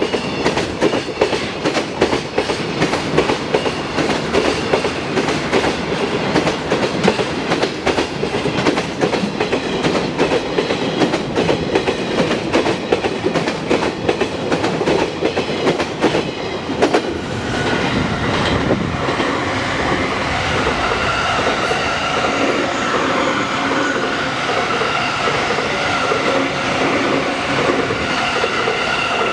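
JR electric trains passing over a level crossing, wheels clacking rapidly over the rail joints. About seventeen seconds in, the clacking gives way to a steadier rumble with several held tones above it.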